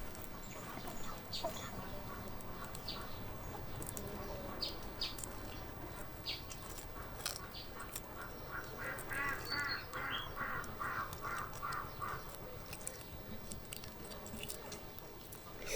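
Birds calling: scattered short high chirps, with a quick run of about ten repeated calls in the middle.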